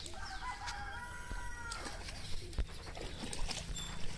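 A rooster crowing once, one long call of about a second and a half.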